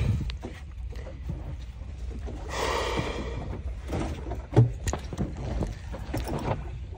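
Steady low rumble of a fishing boat under way, with scattered knocks from handling, a brief rushing hiss about two and a half seconds in and a single thump a little later.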